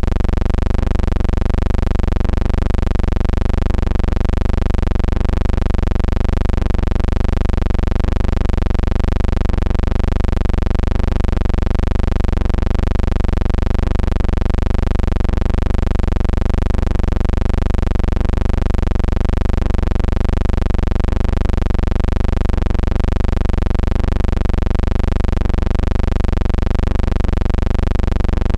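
Steady low hum with an even comb of overtones that waver slightly in pitch.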